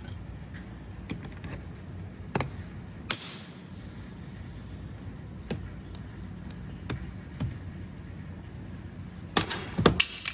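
Plastic door-panel retaining clips clicking and popping as a trim removal tool pries the panel away from the door. There are single sharp clicks every second or so, then a quick run of louder pops near the end as the clips let go.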